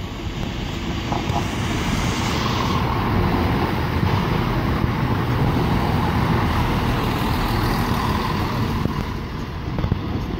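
A ScotRail Class 170 Turbostar diesel multiple unit passing along the platform: a rumble of engines and wheels that swells as it draws level, holds, then eases off as it moves away.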